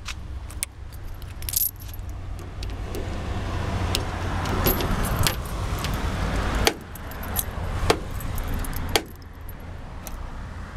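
Keys jangling on a ring as a key is turned in a repaired car door lock, with a series of sharp clicks from the lock mechanism. A low steady hum underneath stops about two-thirds of the way through.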